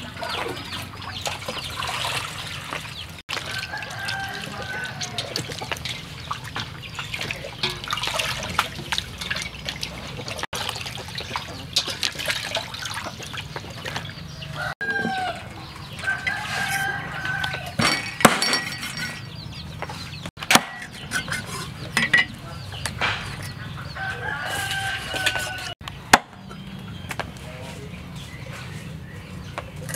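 A rooster crows three times in the background, with hens clucking. A few sharp knocks fall in the second half.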